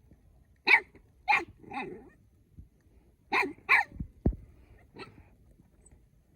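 Young canine barking in short, sharp yips: three about a second in, then two more a little past the middle, followed by a low thump.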